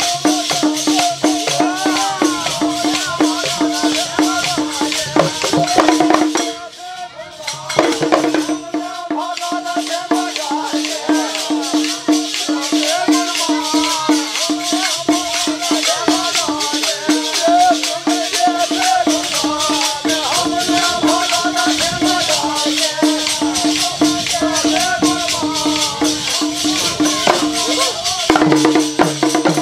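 Bundeli Rai folk music: a barrel drum beaten in a fast, even rhythm under constant jingling metal hand percussion, with a wavering sung melody over it. The music thins out briefly about six and a half seconds in, then comes back full.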